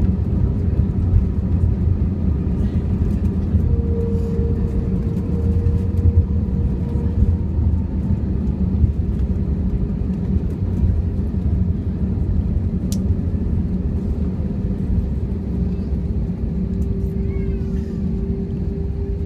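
Airbus A321 cabin noise as the airliner rolls along the ground after landing: a steady low rumble from the engines and wheels, with a faint steady tone over it, easing slightly toward the end.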